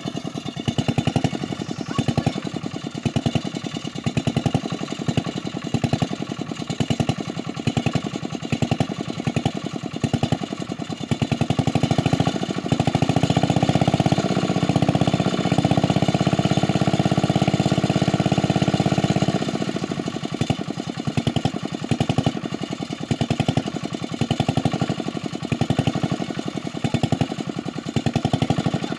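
A small engine running steadily with a rapid regular beat. For about seven seconds around the middle it grows louder and smoother, then drops back to its earlier beat.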